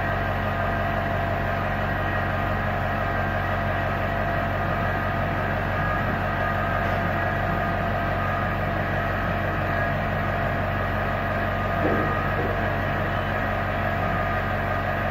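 Steady mechanical hum of workshop machinery running, holding several constant tones without change, with one small knock about twelve seconds in.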